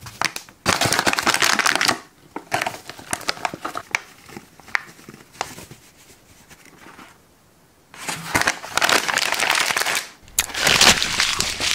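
Plastic potato-chip bag crinkling and rustling as it is handled and crumpled, in loud bursts with crackly lulls between and a short pause a little past halfway.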